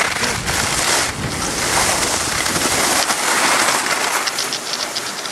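Wind buffeting the microphone of a skier going fast downhill, a loud steady rush mixed with the hiss of skis on snow. Near the end it eases slightly, with a quick run of light ticks.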